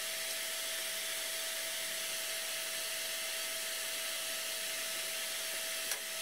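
Soldering fume extractor fan running: a steady whoosh of air with a faint steady whine.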